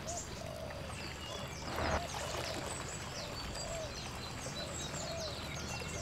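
Outdoor ambience of small birds chirping over and over against a steady rushing, water-like noise, with a brief louder swell about two seconds in.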